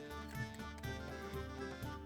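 Background music with a steady beat, in a folk or bluegrass style with fiddle or accordion.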